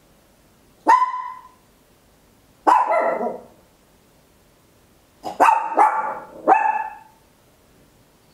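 A papillon, a tiny toy-breed dog, barking loud and high-pitched: single barks about a second in and near three seconds, then a quick string of about four barks.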